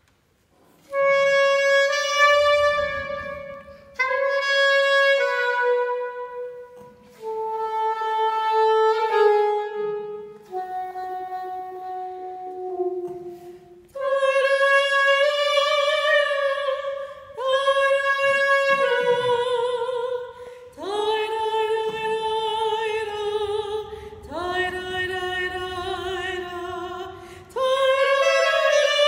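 Solo saxophone playing a slow, unaccompanied melody in short phrases of held notes. Near the end a soprano voice comes in.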